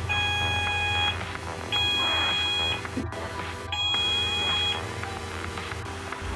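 Fire alarm sounder on an addressable fire alarm system under test, giving a steady beeping tone for about a second at a time with about a second's gap, three times, over a low hum.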